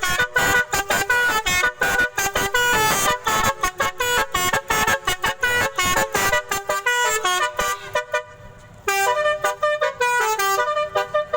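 Telolet multi-tone musical horn playing a fast melody of short, stepped notes. It breaks off for about a second roughly eight seconds in, then starts another run of notes.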